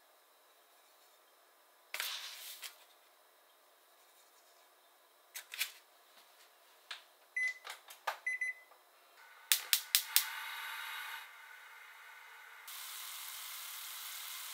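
Kitchen sounds at a gas hob: a spoon tapping and a packet rustling, then two short electronic beeps from the gas stove about seven seconds in, followed by a quick run of sharp clicks. Near the end a steady hiss sets in from the burner and the wok heating the marinade.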